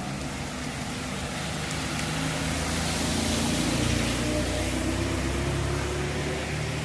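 A car passing by in heavy rain: its engine and the hiss of its tyres on the wet road swell to a peak about halfway through and then fade, over the steady hiss of falling rain.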